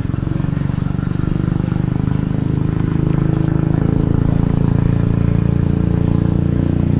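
Insects buzzing steadily and high, over a low, steady motor drone.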